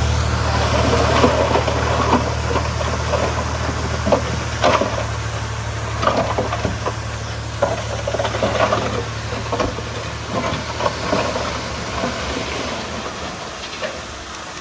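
Heavy earthmoving machinery's diesel engine running with a low, steady rumble that fades over the last few seconds, overlaid by irregular knocks and clattering, like metal tracks or tumbling soil and rock.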